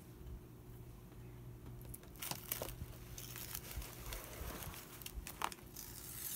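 Paper rustling and crinkling as craft pieces are handled, with a few light clicks and taps, starting about two seconds in over a low steady hum.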